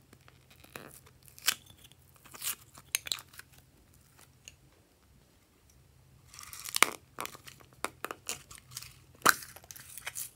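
Hard plastic novelty cases being handled and pried open: scattered sharp clicks and snaps, with a dense stretch of plastic crackling and clicking a little past halfway.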